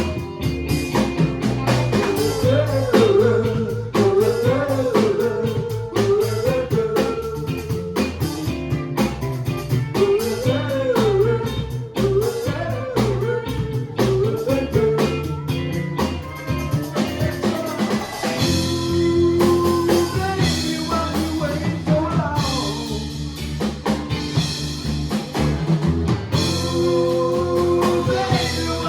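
Live band playing a song on drum kit and guitar, with a pitched lead line bending up and down through the first half.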